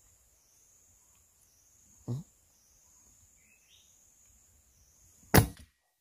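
Insects droning with a high, steadily wavering tone, broken about five seconds in by one loud, sharp crack. A short dull thud comes about two seconds in.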